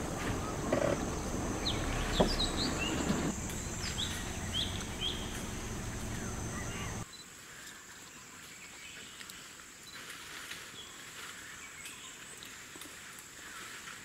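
Forest ambience: short bird chirps over a steady high insect drone, with a low rumbling noise underneath that cuts off suddenly about seven seconds in.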